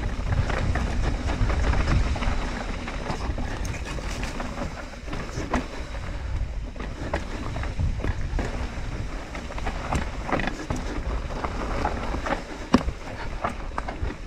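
Mountain bike running down a trail: wind buffeting the microphone and the tyres rolling over dirt, with scattered clicks and knocks from the bike over bumps. A sharp knock near the end is the loudest sound.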